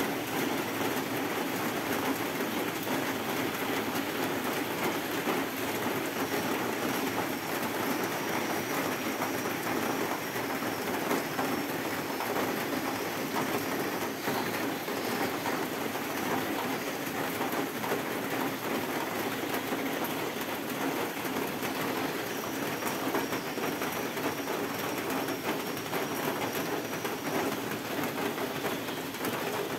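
Steady heavy rain falling on corrugated metal roofing and garden foliage, an even, unbroken downpour.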